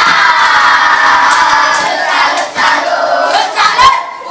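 A class of young children shouting together: one loud, long group shout that thins after about two seconds into a few separate voices.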